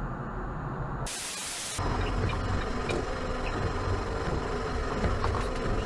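Dash-cam recording of steady road and engine rumble from inside a moving car, broken about a second in by a burst of static hiss lasting under a second. After the static, the rumble and tyre hiss of driving on a wet highway carry on.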